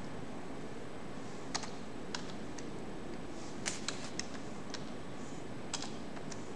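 A handful of irregular computer keyboard keystrokes, single sharp clicks spread out over several seconds, over a steady low background hum.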